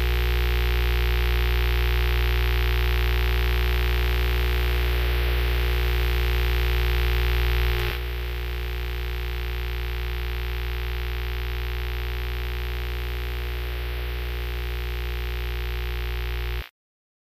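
A steady, low buzzing hum, like electrical mains hum, with no change in pitch. About eight seconds in it drops slightly in level and loses some of its deepest bass, and it cuts off suddenly near the end.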